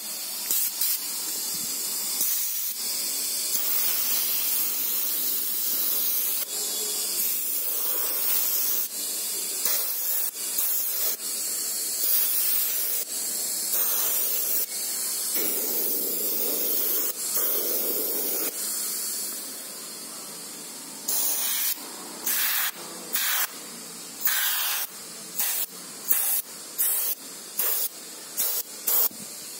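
Airbrush spraying paint: a steady hiss of air and paint with brief breaks as the trigger is eased off, turning about twenty seconds in to a run of short puffs, about two a second.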